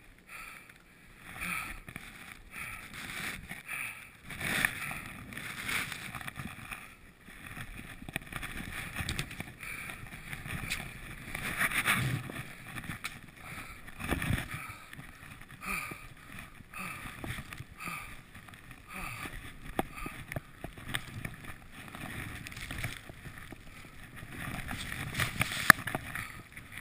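Skis running through deep powder snow, with irregular rushing swooshes as snow sprays over the camera, and a sharp knock about three-quarters of a second before the end.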